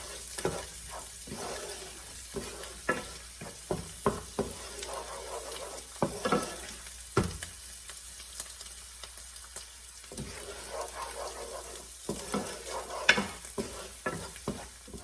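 Masala of onion and spices frying in oil in a pan with a steady sizzle, while a spatula scrapes and taps the pan in irregular strokes as it is stirred to keep the spice from sticking and burning.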